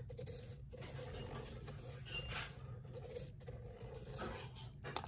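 Faint scratching of a pen on paper as it traces a circle around the inside of a roll of masking tape, over a steady low hum.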